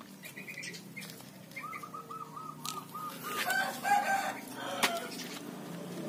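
Pond heron chicks calling: a quick run of about seven short, evenly spaced notes in the first half, then a few lower calls, with a couple of sharp clicks.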